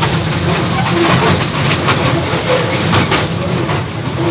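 Small park train running steadily under way, a continuous low engine rumble heard from aboard its open passenger carriage.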